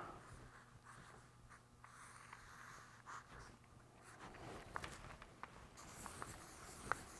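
Marker pen drawing on a spiral notebook page: faint scratching strokes, with a few light clicks in the second half.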